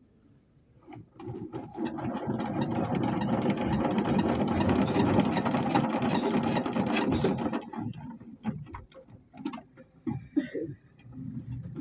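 Small single-cylinder diesel engine being hand-cranked with a starting handle: a fast, steady mechanical clatter starts about a second and a half in and runs for about six seconds, then breaks up into separate, slowing thumps in the last few seconds as the engine turns over on its own momentum.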